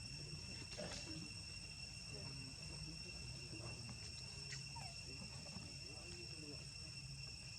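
Steady high-pitched insect drone that does not change, with a few faint soft clicks.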